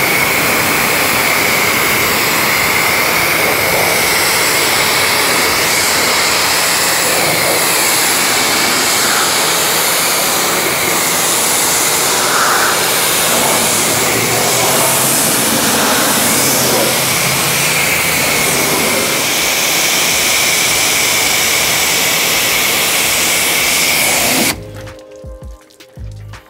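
Pressure washer spraying water onto a car's body to rinse it. A loud, steady hiss with a steady high whine through it, cutting off suddenly about two seconds before the end.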